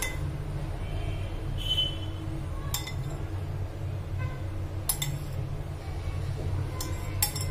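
A metal spoon clinking against a glass bowl about four times while scooping thick curd, over a steady low background hum.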